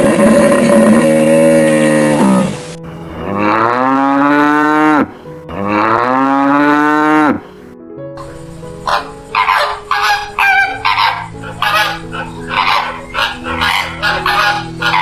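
Cattle mooing: a loud drawn-out moo, then two long moos that each rise in pitch and fall away. From about eight seconds in, a quick run of short, high calls follows.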